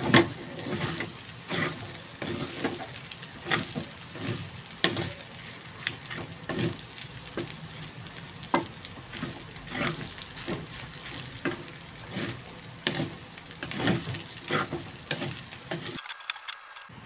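Rice being stir-fried in a wok, turned with a wooden spatula: a scrape or knock against the pan roughly once a second, unevenly spaced, over a light sizzle.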